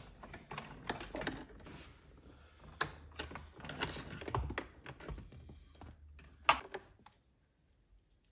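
Irregular light clicking and rustling as cables and wiring are handled in an open car dashboard; it stops about seven seconds in.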